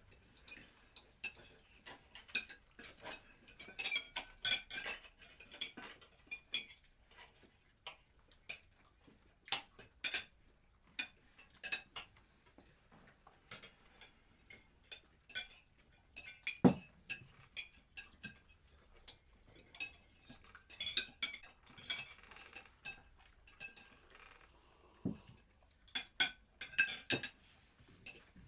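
Metal cutlery clinking and tapping against dishes as people eat. The clinks come irregularly, often in quick clusters, with a heavier knock a little past halfway.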